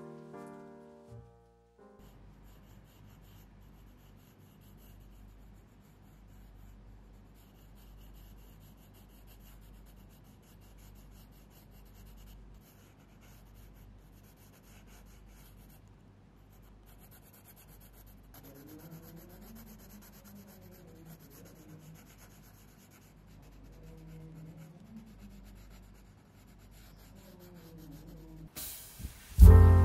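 Faint scratching of a wooden pencil drawing on sketchbook paper, in short, uneven strokes. Piano background music stops about a second and a half in and comes back loudly near the end.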